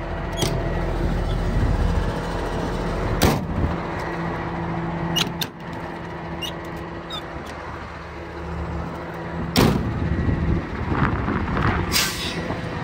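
Truck's Cummins diesel idling steadily, with several sharp metal clacks from the utility body's compartment doors and latches, the loudest about three seconds in and again near ten seconds.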